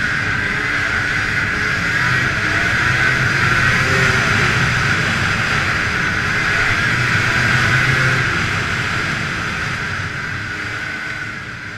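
2000 Arctic Cat ZL500 EFI snowmobile's two-stroke engine running steadily at trail-cruising speed, as heard from the rider's seat. It swells a little now and then and starts to fade near the end.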